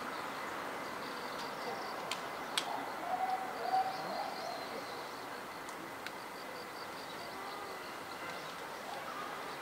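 Outdoor ambience with birds calling: short pitched calls a few seconds in over a faint steady high pulsing chirr. Two sharp clicks come about two and a half seconds in.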